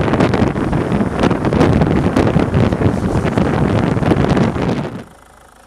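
Heavy wind buffeting on the microphone of a camera moving at downhill-longboarding speed, mixed with the rumble of skateboard wheels rolling over asphalt. The noise cuts off sharply about five seconds in.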